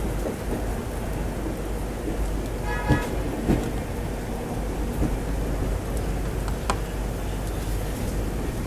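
Passenger train running in heavy monsoon rain, heard from the coach doorway: a steady rushing of rain and wind over a low rumble, with a few sharp clicks.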